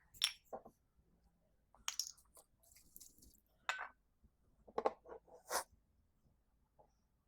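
Small metal parts and hand tools clinking and clicking as they are handled during mower repair work: a few separate sharp clinks and short rattles, the loudest about five and a half seconds in.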